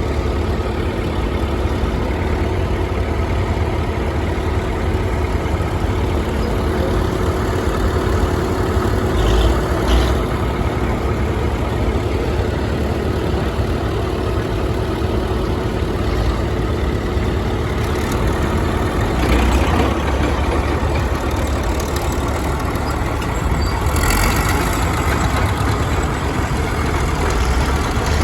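Heavy engines of vintage construction machines such as graders and bulldozers running steadily as they pass in a parade, with a few brief louder surges.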